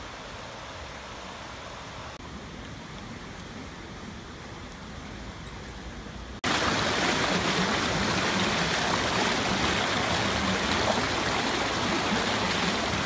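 Shallow stream rushing over rocks: a steady, even rush of water. It comes in suddenly and much louder about halfway through, after a fainter steady outdoor hiss.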